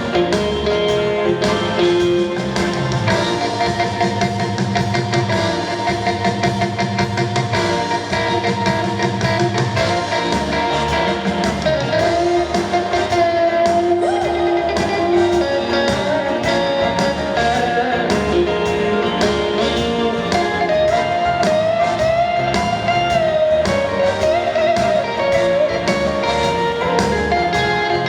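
A female solo voice singing a song over guitar and a drum kit keeping a steady beat.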